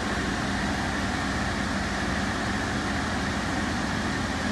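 Insignia portable air conditioner running, its fan blowing a steady rush of air over a constant low hum. It is not yet blowing cold air.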